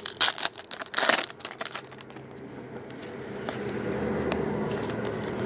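Plastic trading-card pack wrapper torn open and crinkling, in a loud burst at the start and another about a second in. The rest is softer rustling as the cards are handled.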